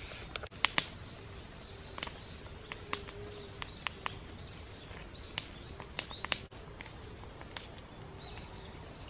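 A spoon clinking and clicking against a stainless steel mug as a drink is stirred, in scattered sharp clicks, the loudest about a second in and again past the middle. Birds chirp in the background.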